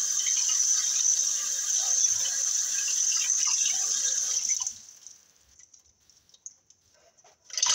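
Kitchen tap running, its stream splashing into a plastic ice cube tray as the tray is filled with water. The water stops about two-thirds of the way through, leaving near quiet with a few faint clicks.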